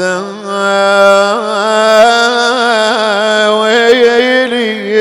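A reciter's unaccompanied voice holding one long sung note on the word "hādha" in a Shia mourning lament (nai), the pitch wavering in small ornamental turns.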